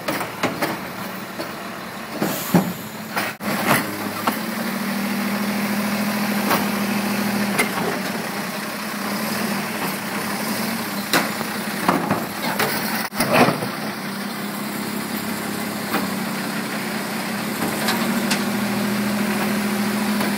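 Automated side-loader garbage truck running, its engine revving up as the hydraulic arm lifts and dumps a wheeled trash cart into the hopper. Several sharp bangs and clunks as the cart knocks against the truck, loudest about 13 seconds in.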